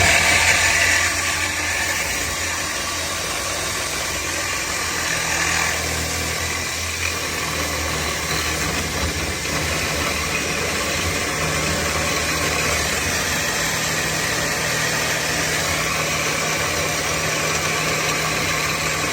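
Power drill clamped in place with its trigger locked, running steadily at full speed as a makeshift lathe spinning a length of metal tube, with a steady motor whine and hum; it is loudest in the first second after being switched on.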